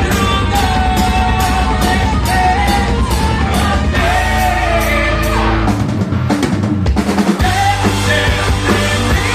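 Heavy metal band playing live: sung vocals over guitars, bass and a drum kit. About six seconds in, the bass and kick drop out for just over a second, then the full band comes back in.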